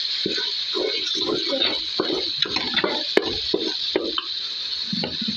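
Food being stirred in a cooking pot: a utensil scrapes and knocks unevenly against the pot over a steady hiss, with one sharp click about three seconds in.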